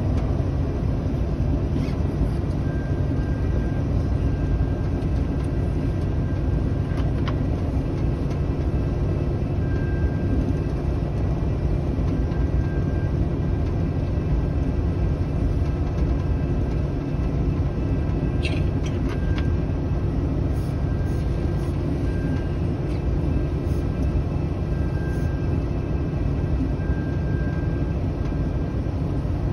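Diesel shunting locomotive's engine running, heard from inside its cab as a steady low rumble while the locomotive rolls along. Faint short high tones come and go every few seconds, with a couple of brief clicks about two thirds of the way through.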